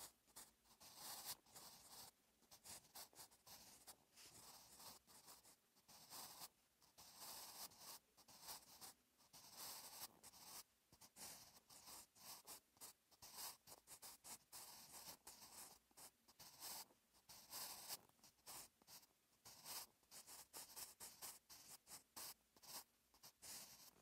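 Staedtler Mars Lumograph Jumbo 8B graphite pencil writing on paper: quiet, scratchy strokes, several a second, broken by short pauses between letters.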